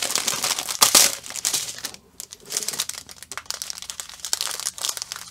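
Clear plastic packets of diamond-painting drills crinkling and rustling as they are handled, in irregular crackles with a sharp one about a second in and a short lull about two seconds in.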